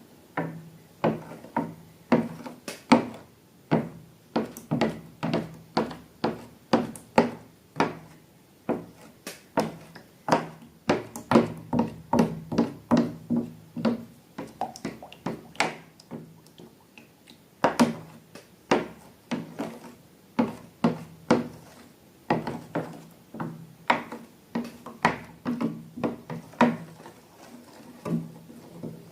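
A long run of sharp taps and clicks, about two to three a second at an uneven pace, each with a short low ring, pausing briefly past the middle.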